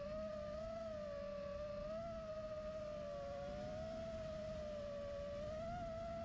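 FPV racing quadcopter's motors and propellers whining at a steady, slightly wavering pitch over a low rumble.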